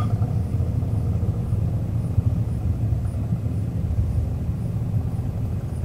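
Low, steady rumble of a vehicle engine idling.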